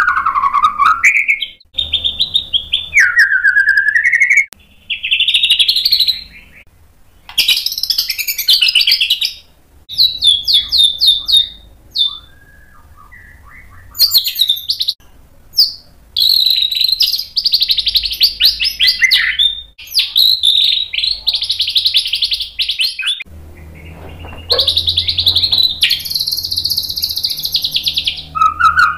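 White-rumped shama (murai batu) singing a varied song in loud phrases of a second or two with short pauses between: whistled slides, fast trills and chattering runs, a longer quiet gap about halfway through. It is the bird's learned 'isian' fill material.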